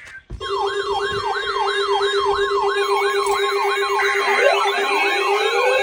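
Electronic sirens in a fast yelp, about three rising-and-falling sweeps a second, starting sharply about half a second in. A second siren with slower rising sweeps joins about four seconds in.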